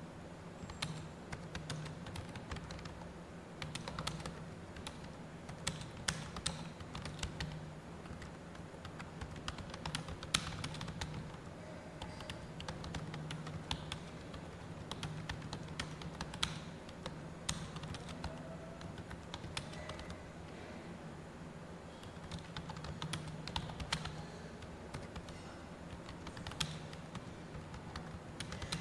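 Computer keyboard being typed on steadily in irregular bursts of key clicks, with a steady low hum underneath.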